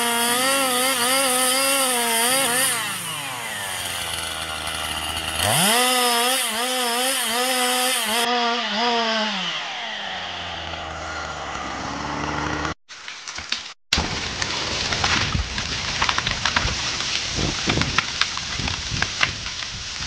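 Chainsaw cutting into a tree trunk at full throttle. Its engine note wavers under load, eases off about three seconds in, climbs back to full revs and drops toward idle around ten seconds in. After two short dropouts comes a run of sharp cracks and snaps over rustling: branches breaking as a felled tree comes down through the forest.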